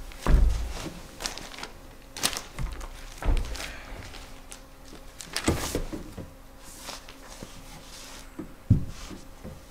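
Paper handling: the pages of a thick script being flipped and shuffled in irregular rustles, with a dull thump about half a second in.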